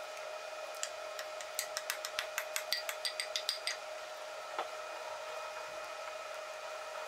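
Wooden spoon stirring thick soup in an enamelled cast-iron pot, knocking against the pot in a quick run of light clicks, about six a second, for roughly two seconds, then one more click a second later. A steady faint whine sits underneath.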